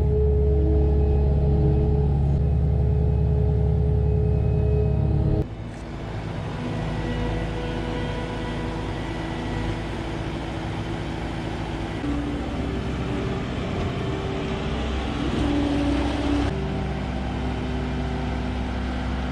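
Vehicle engine running steadily, a deep drone for the first five seconds, then cutting abruptly to a quieter engine sound with more high noise, which shifts again near the end.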